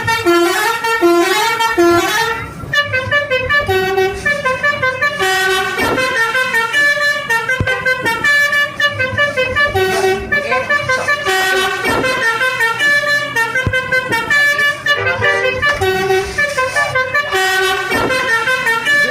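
Basuri 'telolet' multi-tone bus horns playing quick melodic tunes, the notes stepping up and down in rapid succession with only short breaks.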